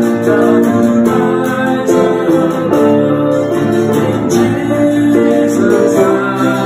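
Worship song: a man singing to acoustic guitar and piano.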